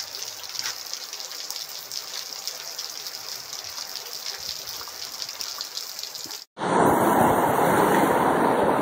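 Steady rain falling, a fine hiss. About six and a half seconds in, it cuts off abruptly and gives way to the much louder, continuous rush of muddy floodwater pouring across a road.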